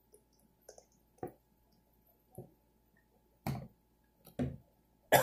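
Handling noise from a plastic mustard squeeze bottle being squirted over a peanut butter cup: a few faint clicks and squishes, then three louder short knocks about a second apart near the end, the last the loudest.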